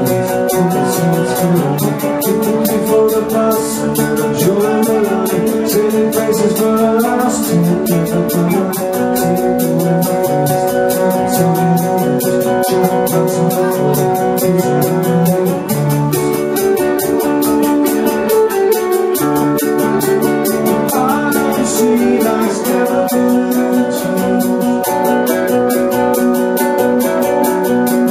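Live rock band playing electric guitars and a drum kit, with a lead vocal singing over them, loud and continuous.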